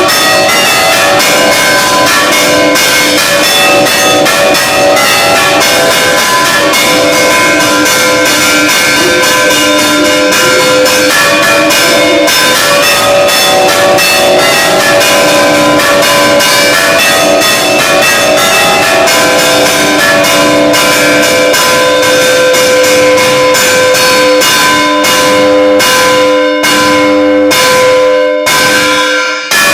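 Church bell ringing loudly and rapidly, strike after strike over its steady ringing tones; the strikes come further apart near the end.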